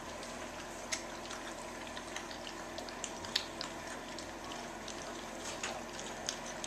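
A litter of four-week-old Labrador puppies eating from a shared bowl of mushy food: steady wet lapping and smacking, with scattered small clicks and ticks.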